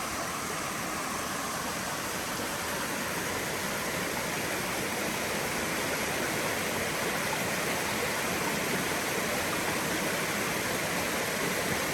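Steady rushing of brook water falling over a small waterfall, growing slightly louder a few seconds in.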